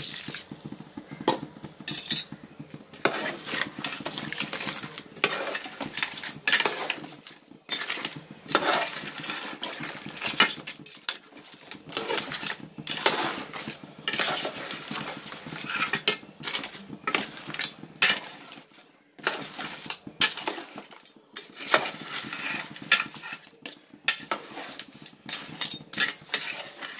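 Long metal spoon stirring crab gravy in an aluminium pot, scraping and clinking against the pot in irregular strokes.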